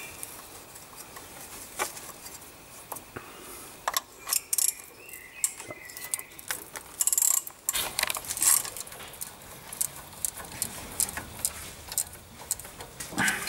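Irregular metallic clicks and clinks of a socket wrench and bolts as a Land Rover's front brake caliper is bolted back on, with short clusters of rapid clicks about four and seven seconds in.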